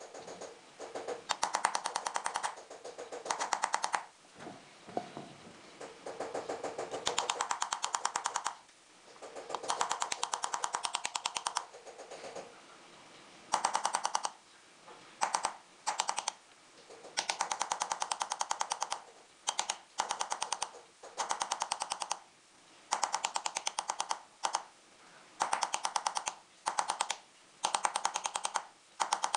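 An engraving chisel tapped rapidly into a silver sheet bedded in pitch, many quick metallic taps a second. The taps come in short runs of a second or two, with brief pauses between runs.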